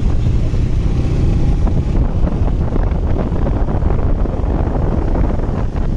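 Wind buffeting the microphone of a moving motorcycle, a steady low rumble with the engine running underneath.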